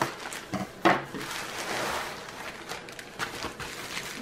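A plastic bubble mailer being pulled off a rolled package, its plastic rustling and crinkling, with a few sharp knocks and taps of handling on a wooden table; the loudest knock comes about a second in.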